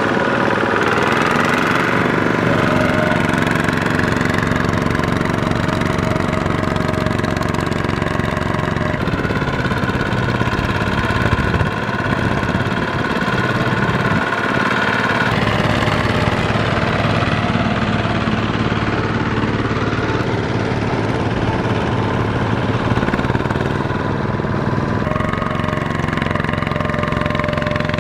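Kubota walking tractor's single-cylinder diesel engine running steadily under load as it hauls a loaded trailer and its lugged wheels churn through deep mud, its note shifting a few times.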